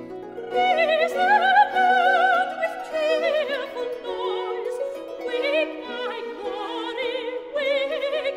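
Soprano singing with a wide vibrato over a Baroque period-instrument orchestra of strings. The voice comes in about half a second in, after the instruments play alone, and carries on to the end with brief breaths.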